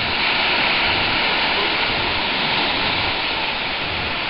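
Steady rush of ocean surf, a continuous washing noise of breaking waves.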